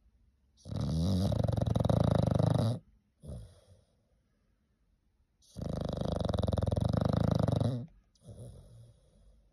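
An English bulldog snoring loudly in its sleep: two long, rattling snores about five seconds apart, each followed by a shorter, softer breath. This kind of heavy snoring is typical of the breed's short, narrow airway.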